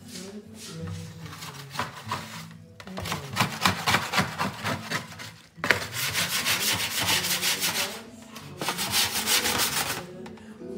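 Fast, rhythmic rubbing and scraping, coming in three loud stretches of a couple of seconds each from about three seconds in, over soft background music.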